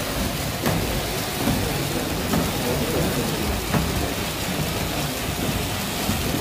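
Wooden rope-winding capstan being pushed round by its push-bar: a steady rumbling noise with a few irregular knocks.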